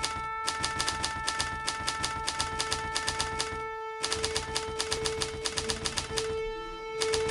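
Typewriter keys striking in quick runs of several clacks a second, with short pauses between runs, over a steady held tone.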